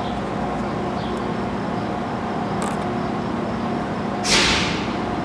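Steady low background hum with a few faint clicks from handling parts, and a brief hiss falling in pitch about four seconds in.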